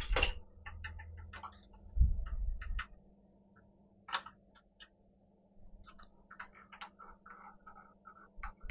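Metal change gears and a spanner being handled on a Myford lathe's gear train: scattered light metallic clicks and taps, with a duller knock at the start and another about two seconds in.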